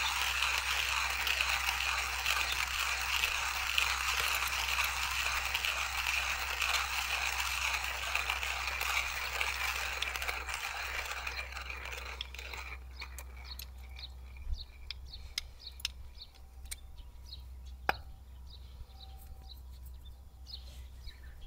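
Hand coffee grinder being cranked, a steady gritty grinding of beans that stops about twelve seconds in. After that only scattered light clicks are heard.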